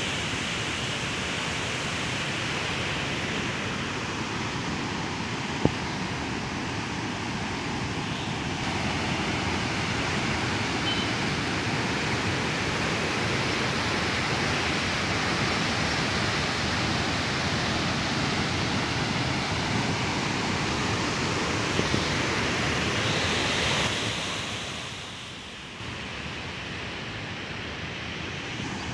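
Muddy floodwater rushing and churning below a barrage's open gates: a steady rush of turbulent water that drops in level a little past two-thirds of the way through.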